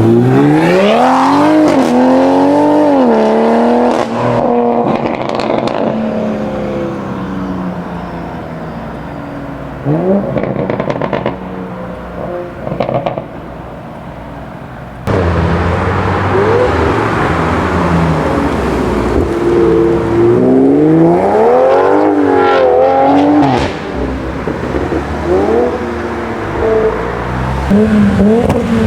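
Tuned Toyota GR Supra Mk5 with the B58 turbocharged inline-six, revving and accelerating hard in several pulls, the engine note climbing and dropping through gear changes. The middle runs quieter, then it comes back loud with more rising revs.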